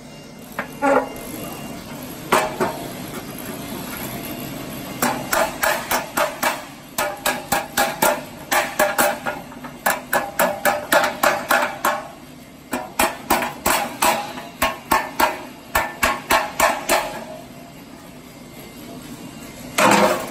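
Hammer striking a roll-formed steel door frame: a few single blows, then long runs of quick strikes, about three to four a second, each with a short metallic ring, with pauses between the runs.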